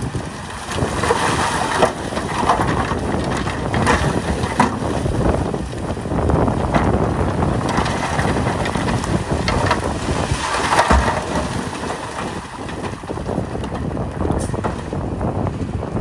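Shantui crawler bulldozer running under load, with stone crunching and grinding as the blade pushes rock; the crunching surges several times over a steady machine rumble.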